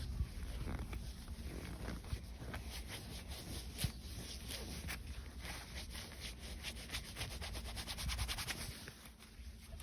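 Hands working filter oil into a foam dirt-bike air filter by massaging and rubbing it: a string of rubbing strokes that turns into a fast, even run in the second half.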